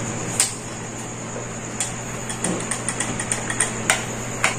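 Screwdriver turning a screw in an air rifle's wooden stock: scattered metal clicks with a quick run of light ticks in the middle, over a steady background hum.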